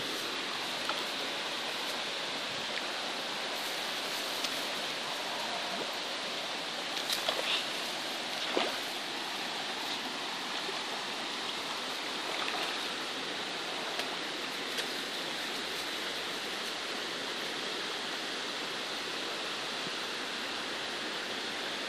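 Steady rush and splash of moving water, with a few sharper splashes about seven to nine seconds in.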